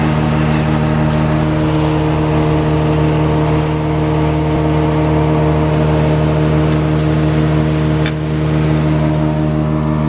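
Case IH 600 silage blower, driven by a John Deere 4430 tractor, running at constant speed as chopped corn silage is blown up the pipe into the silo: a loud, steady, even-pitched machine drone.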